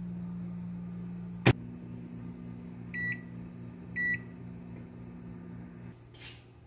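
Microwave oven with a steady low hum; its door shuts with a sharp click about one and a half seconds in, then two short beeps about a second apart as buttons on the control panel are pressed. The hum stops near the end.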